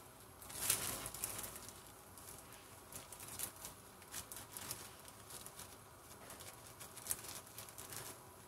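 Thin plastic bag crinkling and rustling as it is handled and opened, a series of faint, crisp crackles.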